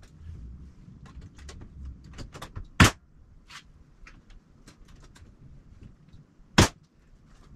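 A staple gun firing twice, about four seconds apart, driving staples through plywood into a wooden boat hull's framing, with lighter taps and clatter of handling between the shots.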